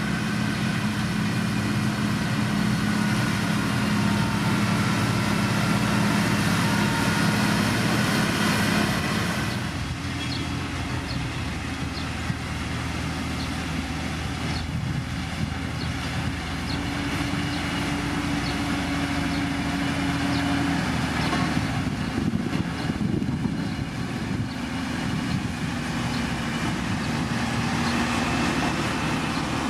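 Diesel engine of a heavy road-construction machine running steadily under work. The engine sound changes abruptly about ten seconds in, then runs on steadily.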